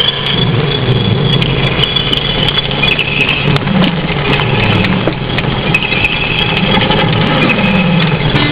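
Peugeot 306 car engines running at low speed as a line of cars rolls slowly past, the engine notes rising and falling, one dropping in pitch near the end.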